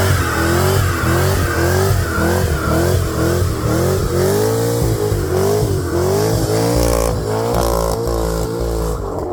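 Corvette Z06's LS7 V8 revving hard during a burnout, its pitch rising and dipping about twice a second, with tyre squeal and hiss that drop away near the end.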